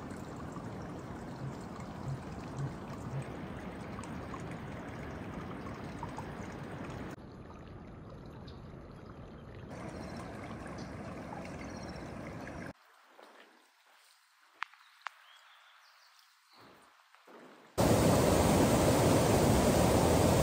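Flowing stream water, a steady rush that changes abruptly several times. About two-thirds through it drops to a much quieter stretch with a few sharp clicks, then near the end a much louder rush of water takes over.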